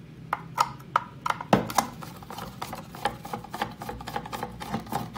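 A screwdriver working the screws of a telematics module's metal shield can: a run of irregular small metal clicks and taps, with one louder knock about a second and a half in.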